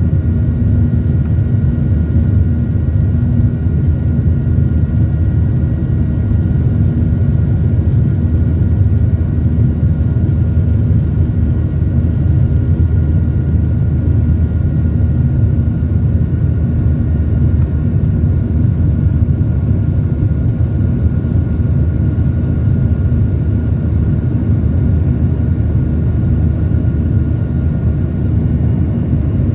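Jet airliner's engines heard from inside the cabin, in a seat over the wing, at climb power shortly after takeoff: a steady, loud low rumble with faint steady whining tones above it.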